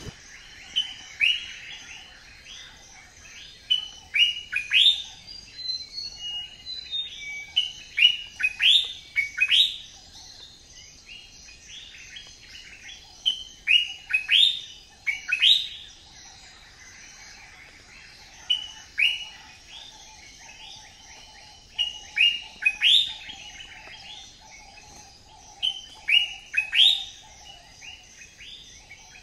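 Birds chirping: clusters of quick, rising chirps every second or two, over a fainter steady twittering lower down.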